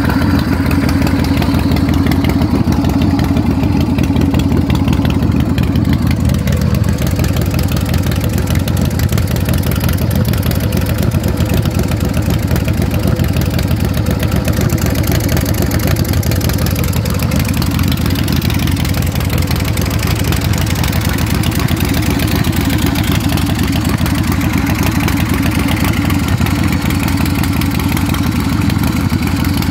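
S&S 117 cubic-inch V-twin of a Big Dog Ridgeback chopper idling cold with the choke on, through open chrome exhaust pipes. The idle settles slightly lower about six seconds in and then runs steadily.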